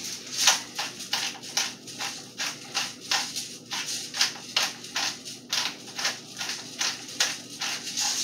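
Hand-held pepper grinder being twisted, cracking black peppercorns: a dry, crisp grinding crunch repeating about two to three times a second.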